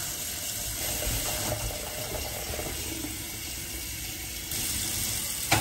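Kitchen faucet running, filling a metal saucepan with water at a stainless steel sink. The flow gets a little louder near the end.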